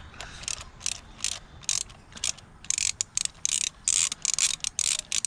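Socket ratchet wrench clicking: a few single clicks, then quick runs of clicks from about halfway through.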